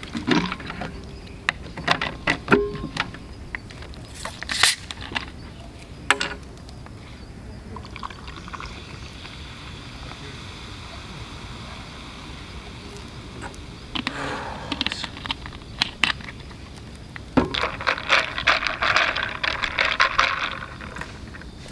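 Ice cubes clinking in a glass mug, then soda water poured over the ice and whisky with a steady fizzing hiss, then a quick run of clinks as the highball is stirred.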